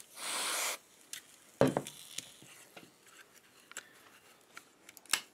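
Workbench handling sounds: a short rasping hiss of under a second, then a sharp knock as a metal aerosol can is set down on the wooden bench, followed by light clicks and rustling of small parts.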